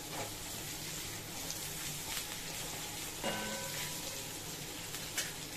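Sliced bell peppers and carrots sizzling in hot oil in a steel wok while a silicone spatula stirs and turns them, with a short ringing sound about three seconds in.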